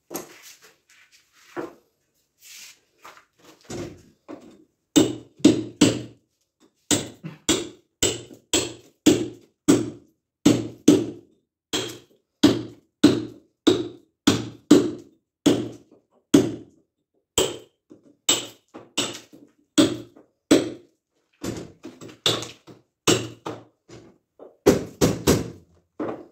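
Hammer blows on masonry: a few scattered strikes, then a steady run of about two blows a second with short breaks.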